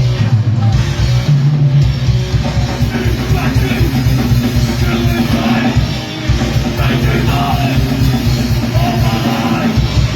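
Crossover thrash-grind punk band playing live: distorted guitars, bass and fast drums, loud and without a break.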